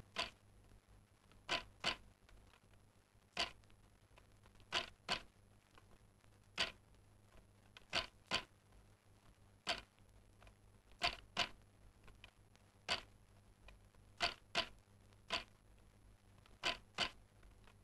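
Wooden hand loom at work, clacking in sharp knocks that often come in close pairs, a fresh knock or pair about every second and a half.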